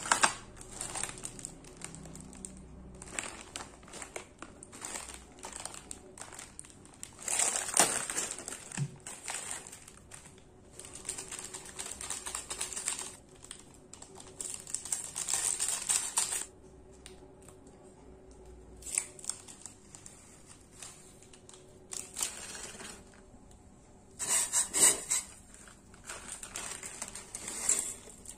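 Plastic instant-noodle packets and seasoning sachets crinkling and tearing as they are opened and squeezed out, in repeated bursts with quieter pauses between.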